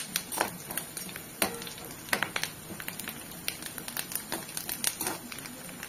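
A metal spatula scraping and clicking irregularly against a kadai as onions, curry leaves and garlic are stirred while frying in oil, over a steady sizzle.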